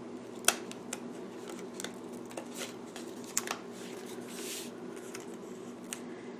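Paper sticker sheets being handled and a sticker peeled and placed: light rustling with scattered sharp clicks, the loudest about half a second in, and a short swish a little past halfway. A steady low hum runs underneath.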